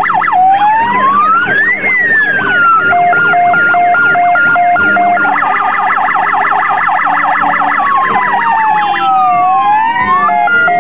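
Several fire engine sirens sounding at once. Fast yelping sweeps and slow rising-and-falling wails overlap with a two-tone high-low siren.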